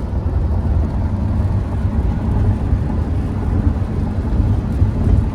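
Steady low rumble of road and engine noise inside a moving car's cabin at driving speed.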